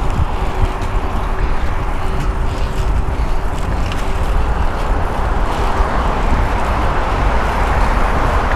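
Wind rushing over the camera microphone while riding a road bicycle, with steady road noise. A faint steady hum sits under it for the first part and fades out.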